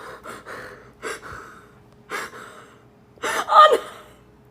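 Three short gasping breaths about a second apart, then a louder voiced gasp near the end.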